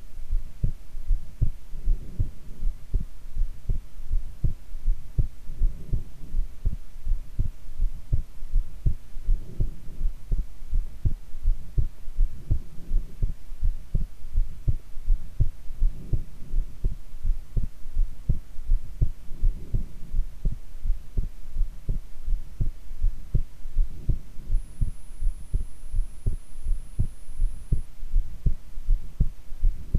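A woman's heartbeat recorded close against the chest while she lies face down: a steady, even lub-dub of low thumps, with a faint swell every three or four seconds.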